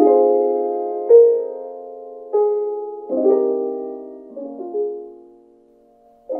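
Piano music playing from an IKEA Symfonisk picture frame Wi-Fi speaker with Sonos sound: slow chords struck about once a second, each ringing out and fading, with a short lull before a new chord near the end.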